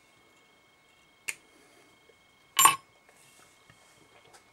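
Two short sharp clicks about a second apart in a quiet room, the second louder: small handling sounds at a fly-tying vise as a silver oval wire rib is tied in.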